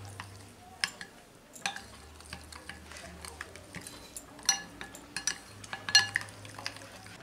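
Metal spoon stirring thick gram-flour batter in a glass bowl, with scattered sharp clinks of the spoon against the glass.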